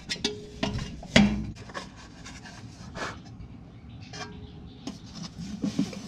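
A hand and arm rubbing and scraping against the car's underbody and transmission while reaching up for the A/C condensate drain grommet, with a sharp knock about a second in and a few lighter clicks after.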